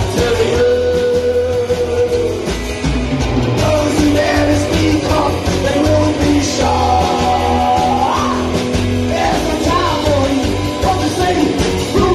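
Psychobilly band playing live: upright double bass and drums under a sung vocal that holds long notes, one sliding upward about eight seconds in.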